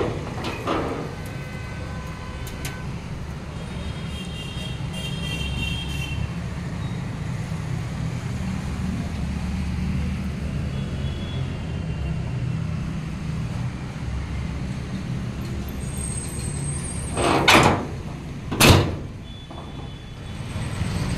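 Steel butterfly hood panels of an old Premier Fargo mini bus being shut: two heavy metal thumps about a second apart near the end, over a steady low rumble.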